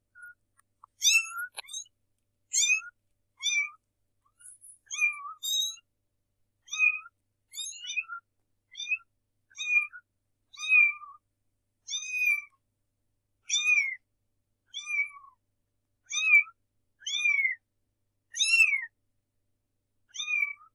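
Young kittens mewing: a string of short, high-pitched mews, roughly one a second, some bending down in pitch at the end.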